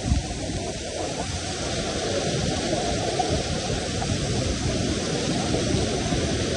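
Waterfall's rushing water, a loud steady roar.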